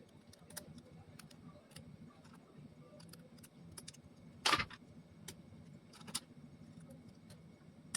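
Light clicks and taps of 3D-printed plastic parts being handled and fitted together, with one louder click about halfway through, over a faint low hum.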